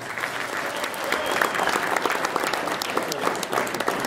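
Audience applauding: many people clapping at once, a dense patter of claps.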